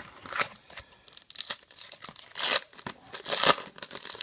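Trading card pack wrappers being torn open and crinkled: a run of small crackling rustles with two louder tearing rustles about two and a half and three and a half seconds in.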